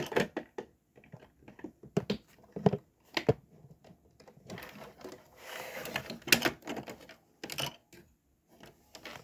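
Plastic Lego pieces clicking and clacking as they are handled and worked, an irregular string of sharp clicks, with a stretch of rustling in the middle.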